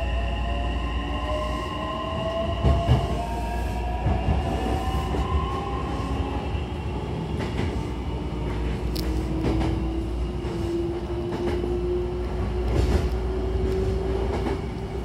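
Hankyu electric train heard from inside the passenger car, pulling away and gathering speed: its motor whine climbs steadily in pitch over a low running rumble, with wheels clicking now and then over rail joints.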